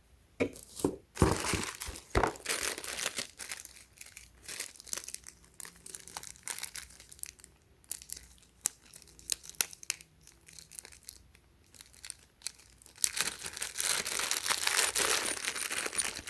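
Plastic packaging crinkling as it is handled, with scattered sharp clicks, turning into a steady run of crinkling for the last few seconds.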